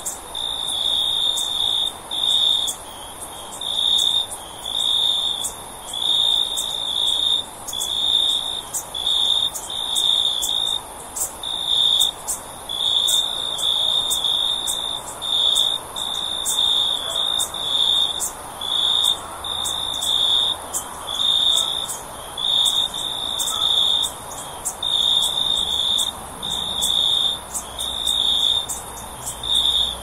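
Crickets chirping in a steady loop of short trilled chirps, about one a second, with sharp high ticks scattered over them.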